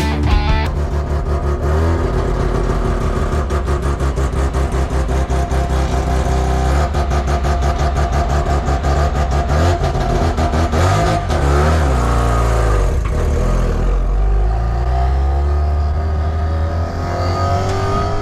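Peripheral-port Mazda 10A rotary engine running with a choppy, rapidly pulsing exhaust note. Its revs drop and climb again about two-thirds of the way through.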